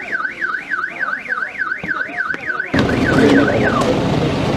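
Electronic siren warbling rapidly up and down, about four sweeps a second. Nearly three seconds in, a loud steady rushing noise takes over and the siren fades out.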